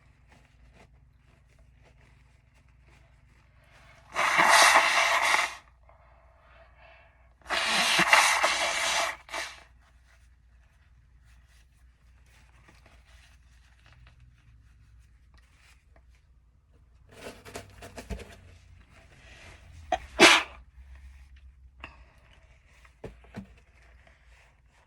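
A person sneezing: two loud, drawn-out sneezes about four and eight seconds in, then quieter breaths and sniffs and a sharp, short, held-back sneeze about twenty seconds in.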